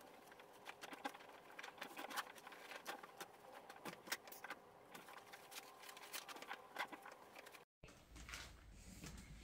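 Faint rustling and soft irregular knocks of clothes being handled and dropped into a plastic laundry basket, over a faint steady hum. The sound cuts out briefly near the end, then faint rustling resumes.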